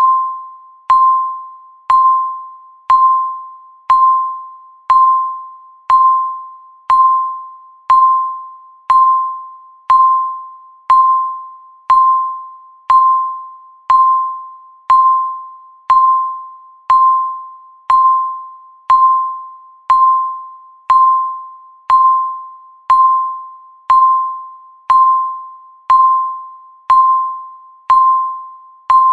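A timer's electronic beep, one pitched tone once a second that fades before the next, counting down the seconds.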